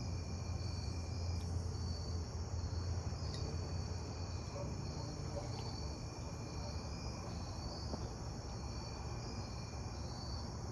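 Evening chorus of crickets and katydids: a steady high-pitched trill with a fainter, lower steady tone, over a low steady rumble.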